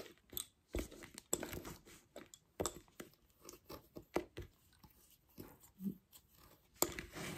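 Lace bobbins clicking and knocking against each other as pairs are handled and crossed in bobbin lacemaking: light, irregular clicks, a few of them louder.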